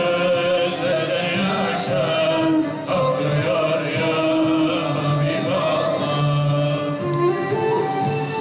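Music for a whirling-dervish sema: a choir chanting a Turkish Sufi hymn (ilahi) in long held, melodic notes, with instruments.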